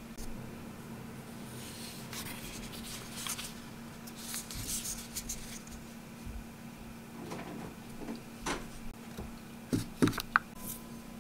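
A plastic-wrapped oden cup being handled: a crinkly packaging rustle through the first half, then a few clicks and light knocks near the end, the loudest as the paper lid is peeled back from the cup.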